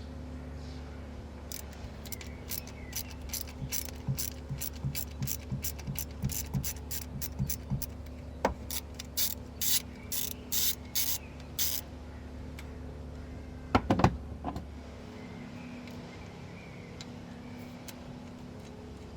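Hand ratchet clicking in a run of quick strokes, working a bolt on the engine during a camshaft sensor replacement. This is followed by a couple of sharp metallic knocks.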